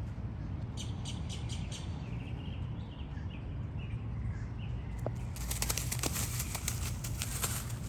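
A quick, dense burst of rustling and flapping starts about five seconds in and lasts roughly two seconds, over a steady low rumble. A few short bird chirps come before it.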